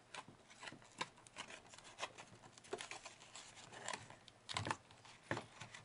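Faint clicks, taps and rustles of fingers handling the cracked-open plastic battery case of a Macintosh Portable, lifting and shifting its loose lid, with a few louder knocks between about four and a half and five and a half seconds in.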